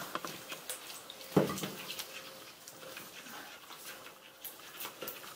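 White homemade slime being stretched and kneaded in bare hands, giving soft sticky squelches and small scattered crackling clicks, with one sharper sound about a second and a half in.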